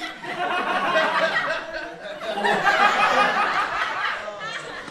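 A man laughing, in two long stretches with a short break about two seconds in.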